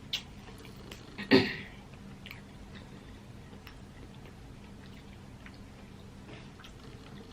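Chewing and small wet mouth clicks of a person eating a crawfish seafood boil, with one louder smack about a second and a half in.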